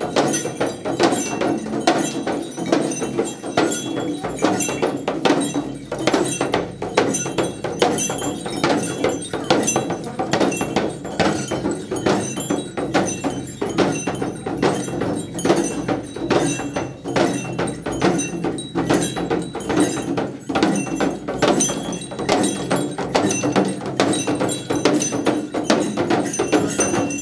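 Shaman's handheld frame drums (dhyangro) beaten with curved sticks in a fast, steady rhythm, with small metal bells jingling over the beat.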